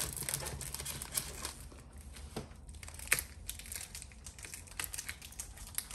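Plastic wrapping crinkling and crackling as a child's fingers work at it, in irregular small crackles with one sharper crackle about three seconds in.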